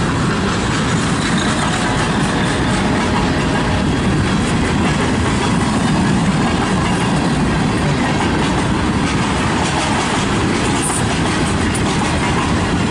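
A freight train's cars rolling past: a loud, steady noise of steel wheels on rail.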